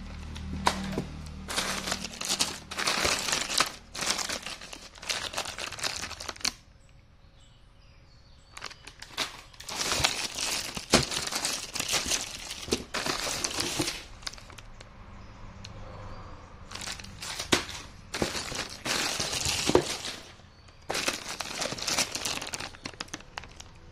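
Plastic-wrapped spare-part packets crinkling and rustling as they are handled and shifted in a cardboard box, with sharp crackles. The sound comes in four spells with short pauses between them.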